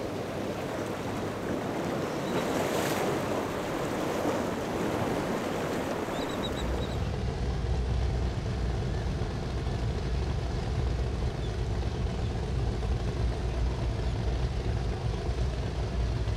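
Rushing surf and wind noise. About six and a half seconds in, this gives way to a low, steady rumble of powerboat engines, with the surf fainter behind it.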